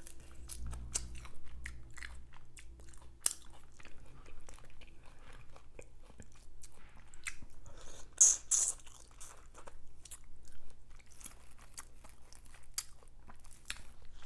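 Close-miked eating of seafood boil: chewing and crunching, with many sharp clicks and crackles of shrimp shell being peeled. The loudest crackle comes about eight seconds in.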